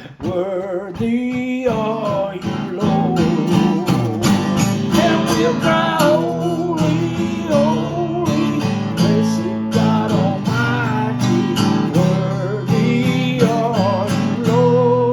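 Music from a gospel song with no words sung: acoustic guitar strumming over band accompaniment, with a wavering melody line above it.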